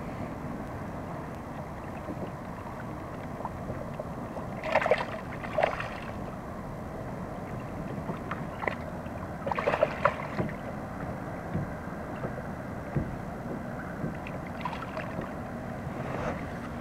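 Steady wind and water noise around a sit-on-top fishing kayak on open water, with a few short, sharp sounds about five seconds in, again near ten seconds, and near the end.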